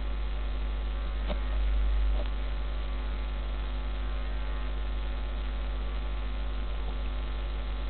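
Steady electrical mains hum with a faint hiss behind it, and two faint clicks a little over a second and about two seconds in.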